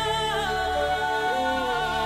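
Music: a slow melody of long held notes that waver slightly and step in pitch, over a steady low drone.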